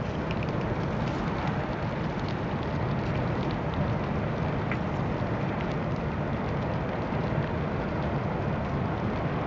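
A huge wooden structure fully ablaze: the big fire's steady low rushing noise, with scattered small crackles and pops.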